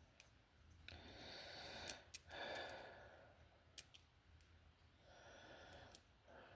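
Near silence with a few faint breaths and a handful of small, sharp clicks from small parts being handled.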